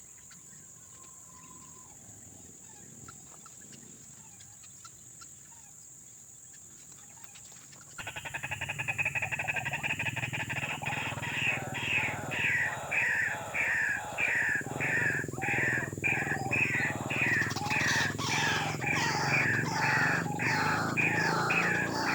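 White-breasted waterhen calling: a harsh 'ruak-ruak' call repeated about twice a second, starting suddenly about eight seconds in after a faint, quiet background.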